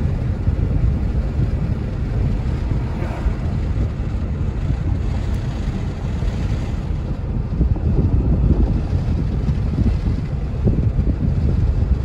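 Steady low rumble of wind and road noise inside a moving car.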